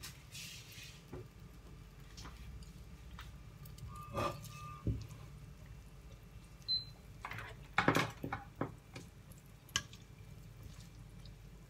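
Butter melting in a stainless steel saucepan, with faint sizzling and scattered small pops. Starting about eight seconds in, a plastic spoon knocks and scrapes against the pan as the butter is stirred.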